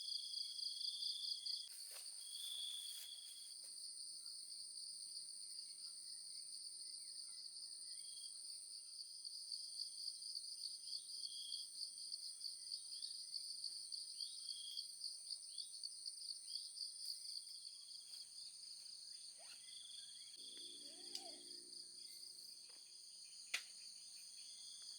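Insects, crickets among them, trilling steadily in a fast, even pulse, with scattered short bird chirps. A lower call comes briefly about twenty seconds in, and a single sharp click near the end.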